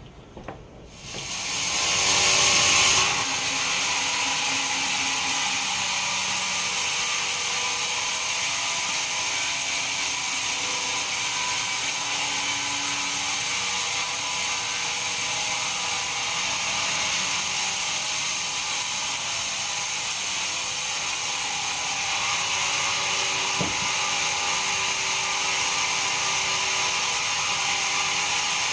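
Band sawmill sawing a pine log: a steady, high-pitched hiss that comes in about a second in and holds.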